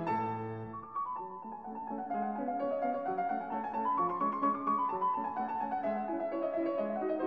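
Background piano music playing a melody over lower notes.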